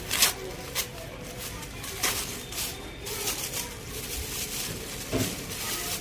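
Packaging and fabric being handled during an unboxing: irregular crinkling and rustling, with sharper crackles near the start, about two seconds in and again near the end.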